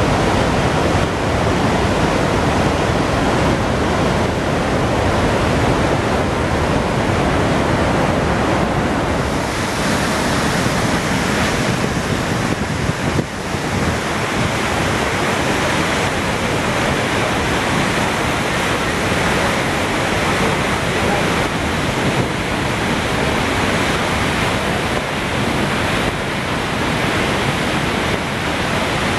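Iguazu Falls: the loud, steady rush of a large waterfall, with a brief dip about halfway through.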